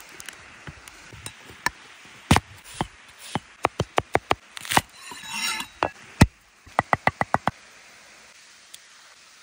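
Knife chopping on a wooden cutting board: quick runs of sharp knocks, about five or six a second, separated by single knocks and a short scrape.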